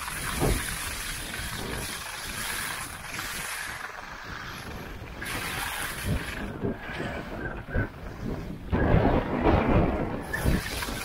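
Wind rushing and buffeting over the microphone of a camera carried by a skier moving at speed, mixed with the hiss and scrape of skis on groomed snow. The rumbling gusts are strongest near the end.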